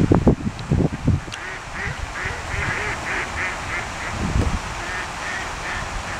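Mallard ducks quacking in a run of short calls, about two to three a second, from about two seconds in. In the first second, loud low buffeting of wind on the microphone.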